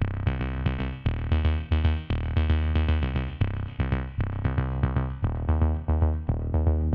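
Background music with a steady beat of repeated pitched notes over a deep bass.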